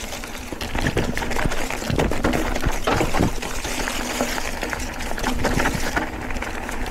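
Mountain bike rolling over a rough trail: a steady crunch of tyres with many small knocks and rattles, busiest a couple of seconds in.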